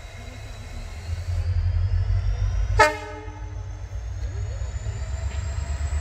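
Approaching train: a low rumble builds up from about a second in, with one short horn toot near the middle.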